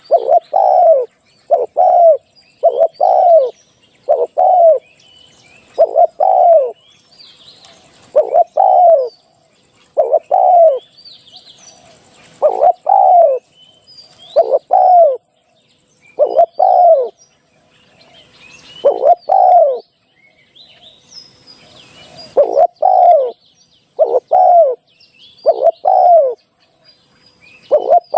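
Spotted dove cooing loudly and repeatedly: short falling coo notes, often in pairs, about one every second or two, with a break of about two seconds past the middle. Small birds chirp faintly in the background.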